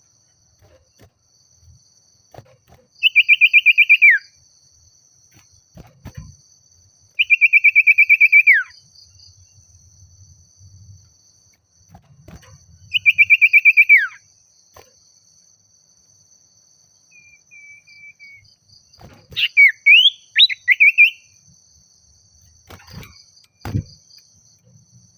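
Common iora (sirtu/cipoh) singing in full voice: three loud, rapid trills, each about a second long and ending in a falling slide, then a quick burst of varied chirps near the end. This is the song used to call a rival.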